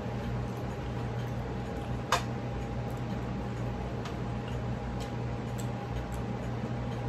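Eating by hand: scattered small clicks and mouth smacks as fried tilapia and rice are picked apart with the fingers and chewed, with one sharper click about two seconds in. Under it runs a steady low hum.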